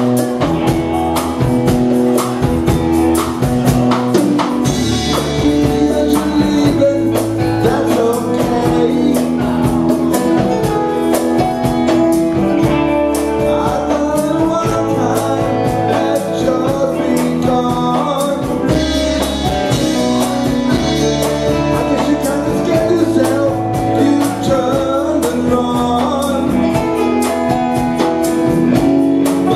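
Live R&B band playing through a club PA: electric guitars, electric bass and drum kit with hand percussion, in a steady groove.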